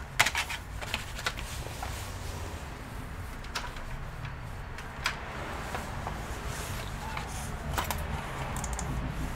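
Scattered light clicks and taps, several close together just after the start and then single ones every second or two, over a steady low hum.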